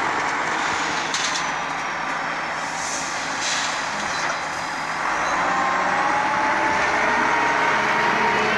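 Skid steer engine running steadily, heard from the cab, with brief sharp noises about one and three seconds in; about five seconds in the engine note rises and gets louder as the machine works.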